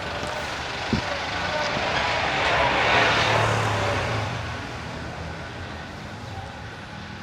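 A motor vehicle passing by: its noise swells to a peak about three seconds in, with a low engine hum, then fades away.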